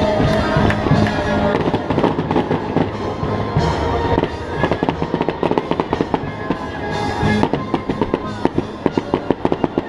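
Fireworks display: many sharp bangs and crackles from bursting shells, coming thick and fast in the second half.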